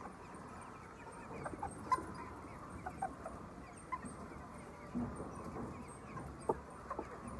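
A flock of chickens calling, with many short, overlapping clucks and chirps and a few sharp clicks.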